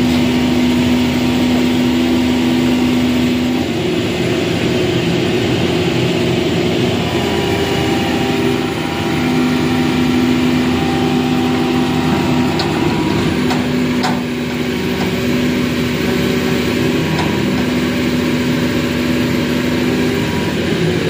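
Diesel engine of a Hitachi crawler excavator running under load as its bucket pushes a truck. It is a steady drone whose pitch steps up and down every few seconds, with a few faint knocks after the midpoint.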